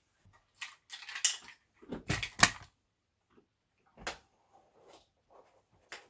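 Handling sounds of a wood-stocked bullpup air rifle being unhooked from a luggage scale and laid down in a foam-lined hard case: rustling about a second in, a couple of loud knocks about two seconds in, and a single sharp knock about four seconds in.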